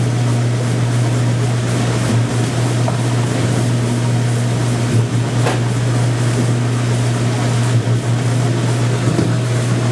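Oil-water separator machinery running: a loud, steady motor hum from the spinning separator and its electric well pump, with a few faint clicks.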